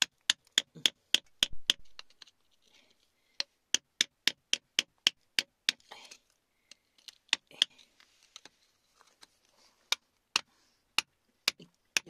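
Metal pick tapping and scraping at wet, gravelly rock: sharp clicks, several a second, coming in runs with short pauses, with faint scraping between them.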